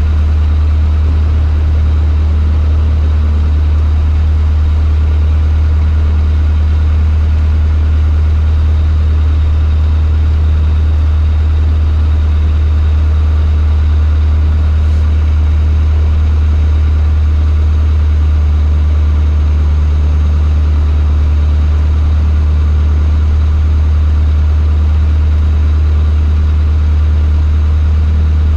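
Cessna 152's four-cylinder Lycoming O-235 engine and propeller running at a steady setting: a loud, unchanging low drone.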